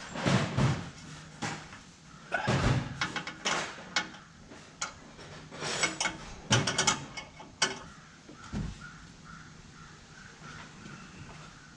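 Metal hand tools clinking and clattering as they are rummaged through and handled: irregular knocks and clanks, with a quick run of rattling clicks about two-thirds of the way through.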